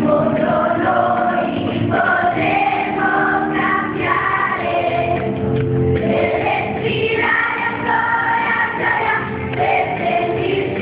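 A group of primary-school children singing a song together in chorus.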